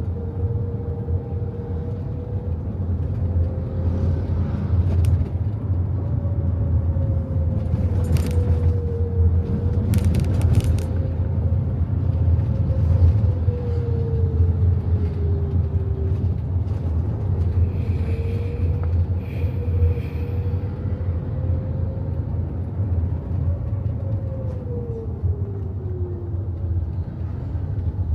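Moving car heard from inside the cabin: a steady low rumble of engine and tyres on the road, with a faint tone that rises and falls as the car changes speed. A few short clicks come about 8 and 10 seconds in.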